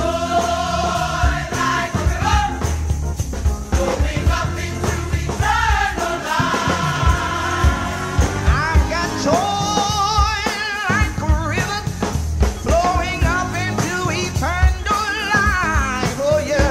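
Live gospel band playing, with a Roland stage piano, a drum kit and a group of vocalists singing. About nine seconds in, a voice holds a long note with vibrato.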